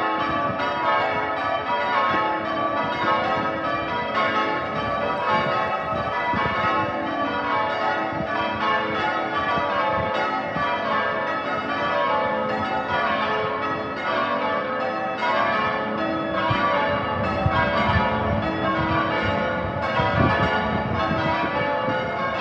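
Church tower bells change ringing: the bells are struck one after another in a steady, continuous stream, their tones overlapping.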